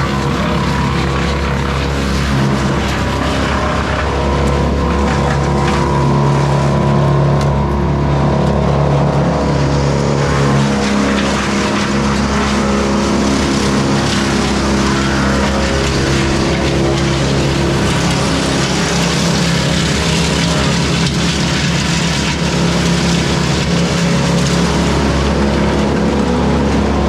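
Morbark Beever M12R wood chipper running steadily at speed, its engine droning. From about ten seconds in a louder rushing, crackling hiss is added on top, the sound of branches being chipped.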